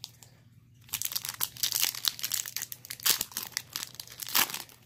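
Foil Pokémon booster pack wrapper crinkling and crackling as it is handled and torn open, starting about a second in.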